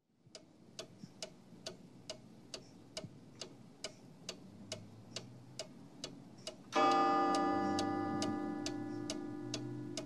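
Steady clock-like ticking, a little over two ticks a second, over a low hum. About two-thirds of the way in, a loud ringing chord comes in and slowly fades while the ticking carries on.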